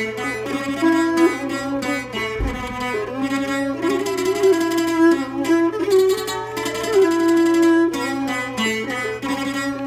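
Jakhe, a Thai three-string floor zither, plucked with a plectrum in quick tremolo so that each note sounds held, moving through a slow melody while the left hand stops the strings on the frets. A brief low thump sounds about two and a half seconds in.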